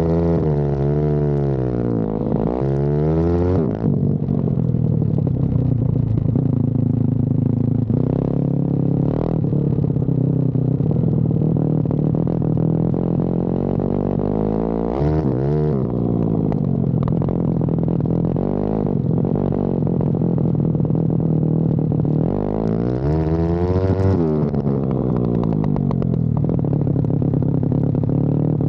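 Pit bike's single-cylinder engine running, fitted with a new carburettor and CDI, its revs rising and falling about a second in, around the middle and again near the end, steadier in between.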